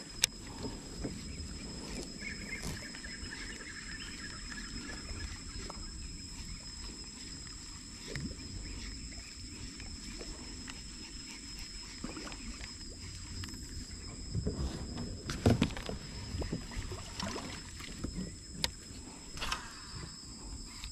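A baitcasting reel being cast and fished: a sharp click just after the start, a spool whirring as line pays out from about two to four seconds in, then a long stretch of low handling noise. In the last third come a series of knocks and clicks from the rod and reel against the kayak. The reel is new and runs smoothly.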